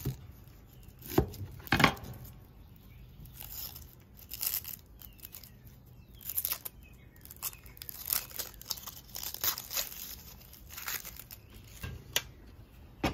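Papery skin of a yellow onion crackling and tearing as it is peeled off by hand, with scattered sharp taps and knocks on a wooden cutting board.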